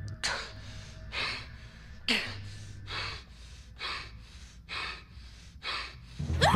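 A person breathing hard in audible gasps, about one breath a second, over a low hum. Right at the end a sudden louder sound breaks in.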